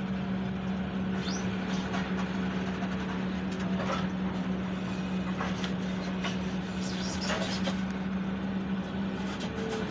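Excavator's engine and hydraulics running steadily, heard from inside the cab, with a constant low hum and a few faint clicks and scrapes. The breaker hammer is not pounding.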